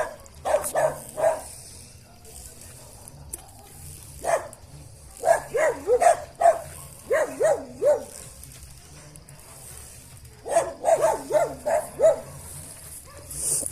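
Dog barking in short, repeated barks that come in several quick clusters.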